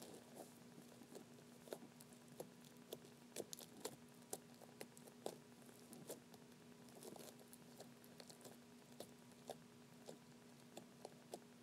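Red glitter slime, so packed with gold sparkles that it is almost crunchy, being kneaded and poked by fingers: faint, irregular little clicks and pops, a few each second, over a low steady hum.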